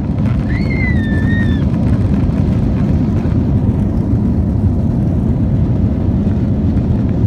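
Airbus A321 cabin noise during the takeoff roll: a loud, steady rumble of the jet engines at takeoff power and the wheels running on the runway. A short high-pitched gliding squeal sounds about half a second in.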